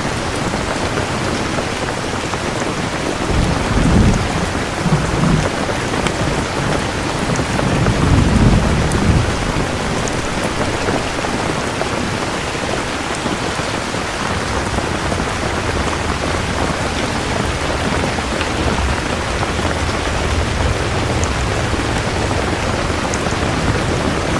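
Steady rain with thunder: two low rumbles of thunder, about four and eight seconds in, and a fainter low rumble through the second half.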